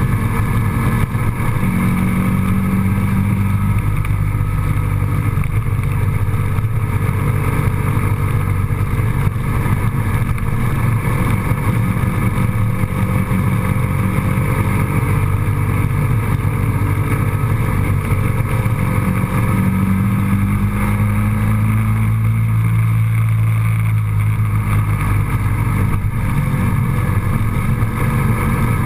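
Steady engine and road noise of a moving road vehicle, with the engine's low hum rising and falling slightly in pitch.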